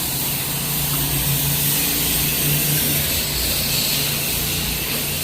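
Pressure washer's engine running steadily, with the hiss of the high-pressure water spray rinsing down a surface.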